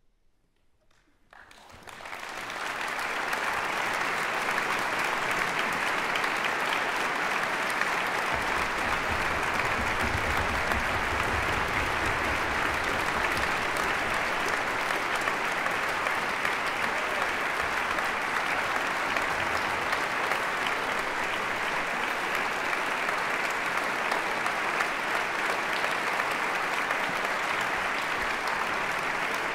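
Concert audience applauding: clapping breaks out about a second in after a silence, swells within a couple of seconds and then keeps on steadily.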